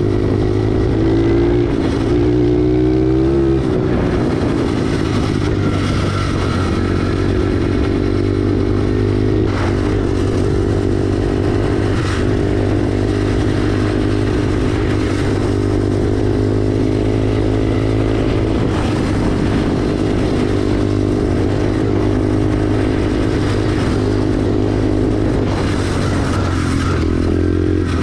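SSR 110 pit bike's small single-cylinder four-stroke engine running as the bike is ridden. The engine note rises and falls over the first few seconds, holds steady for most of the time, and shifts again near the end, with a few short knocks and rattles.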